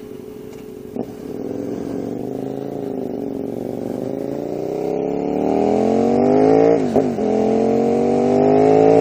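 KTM 990 Supermoto R's V-twin engine with a Leo Vince aftermarket exhaust, pulling away from a standstill and accelerating hard: the engine note rises steadily through the gears, dips briefly at an upshift about seven seconds in, then climbs again, with wind noise building as speed rises.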